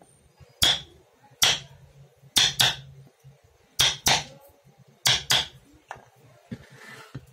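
Hammer strikes, about eight sharp blows at uneven intervals, several in quick pairs, each with a brief ring.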